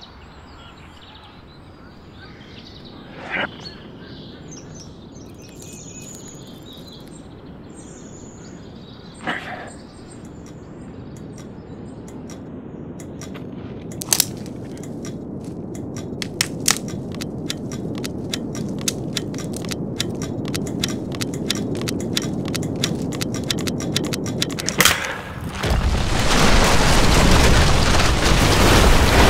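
A low rumble slowly swells while sharp cracks come faster and faster, then a loud explosion near the end as a house's roof blows apart, its blast and debris noise running on.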